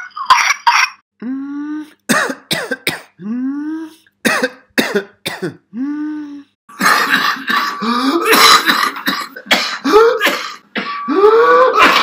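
Whooping cough (pertussis) coughing fits: runs of sharp, rapid coughs, each bout ending in a drawn-in 'whoop', a breath that rises in pitch and then holds as air is sucked back in. There are several whoops. From about halfway the coughing comes denser and louder.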